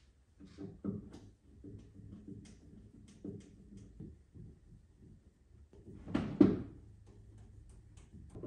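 Small metallic clicks and rattles of a hand tool on the wing bolts under a car's trunk lid, with one louder knock about six seconds in.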